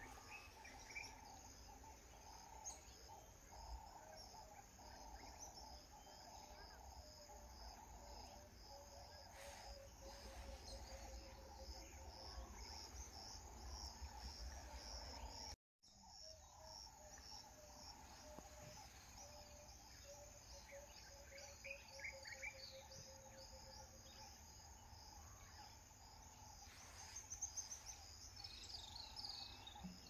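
Faint outdoor wildlife ambience: high bird chirps and insect calls over a low rumble, with a low pulsing trill that repeats and sinks slightly. The sound cuts out completely for a moment about halfway through.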